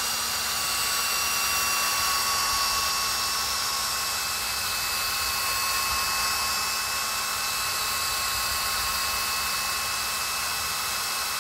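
Electric drill running steadily with a paddle mixer, stirring a two-part floor coating (parts A and B) in a plastic bucket. The motor holds one steady speed throughout.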